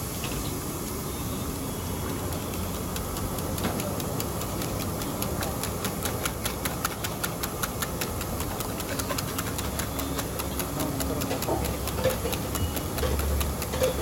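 Eggs being beaten in a steel bowl with a wire whisk, the metal clicking against the bowl in rapid, regular strokes, starting a few seconds in. Underneath is a steady street-traffic rumble.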